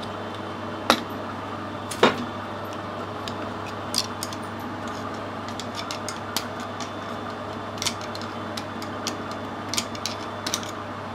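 Screwdriver prying at the worn-out thrust washer of a steam-engine speed governor held in a lathe chuck. Scattered sharp metal clicks and taps are heard, the loudest about two seconds in, as the shattered bearing parts are worked loose. A steady low hum runs underneath.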